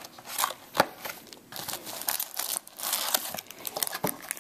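Cardboard trading-card blaster box being torn open and its packs handled: irregular crinkling, tearing and rustling of cardboard and wrappers, with a sharp snap about a second in.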